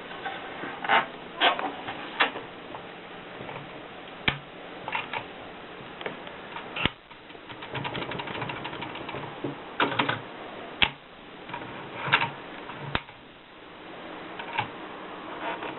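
Olympia Splendid manual typewriter in use: sharp, irregular key and typebar strikes, with a quick run of small rapid clicks in the middle.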